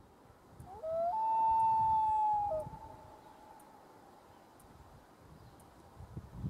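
Common loon giving a wail. About a second in comes one long call that rises and then holds a steady note for about a second and a half before dropping away.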